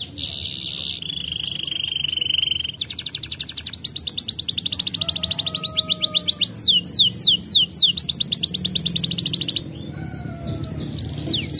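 Domestic canary singing, a fast sequence of trills and rolls: rapid runs of repeated whistled notes, some held as steady buzzing rolls and others as quick downward-sweeping notes, with a brief lull near the end.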